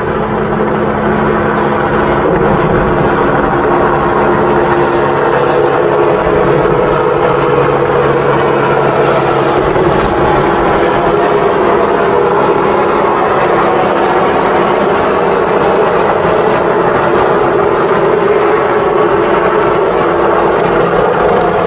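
Steady drone of a helicopter's engine and rotor, holding at a constant level with a few held pitches.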